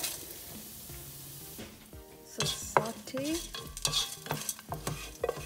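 Urad dal, chana dal and mustard seeds frying in hot coconut oil in a non-stick pan, with a soft sizzle. From about two seconds in, a wooden spatula stirs them with quick clicks and scrapes against the pan.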